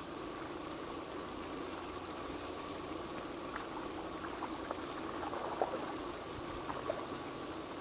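Steady splashing wash of a lake fountain's spray with a faint steady hum under it, and a few small clicks from a spinning reel being handled and wound about halfway through.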